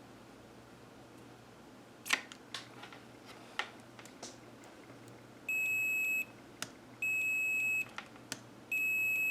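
A few small clicks, then a multimeter's continuity beeper sounding three times, each a steady high beep just under a second long. Each beep is the meter reporting continuity, a short in the calculator's circuit.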